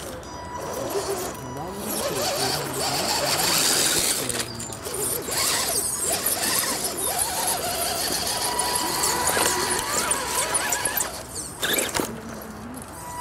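Electric drivetrain of an RC scale rock crawler whining and squealing in short, wavering pitches as it crawls over rock.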